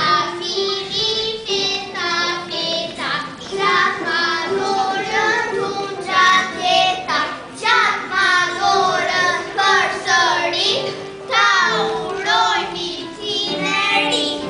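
A child's voice singing a song in phrases, some notes held and gliding.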